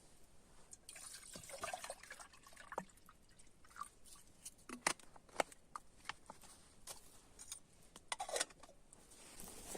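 Water poured into a kettle, with short gurgles and drips and scattered sharp clicks.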